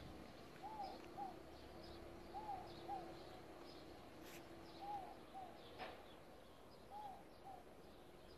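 Faint outdoor ambience: a bird's low two-note call repeating about every two seconds, with fainter high chirps of other birds and a steady low hum. Two short clicks come about halfway through.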